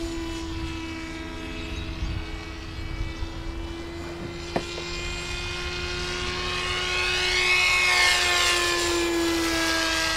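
Motor of a radio-controlled model of three jets flown as one rigid formation, droning at a steady pitch overhead. It grows louder with a sweeping, phasing sound as it passes by about three-quarters of the way through. A single sharp click comes about halfway.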